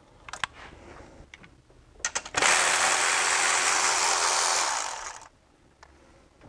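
Milwaukee cordless ratchet running for about three seconds as it spins out a bolt on the engine's coolant pipe, then stopping, with a few light metallic clicks of the tool and socket on the bolt before it starts.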